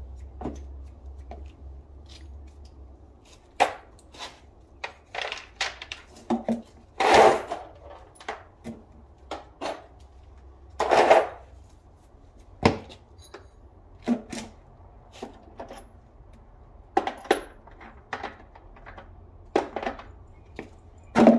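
Hand tools knocking, clicking and rattling against the engine's metal parts, in irregular separate strikes with a few longer scraping rattles.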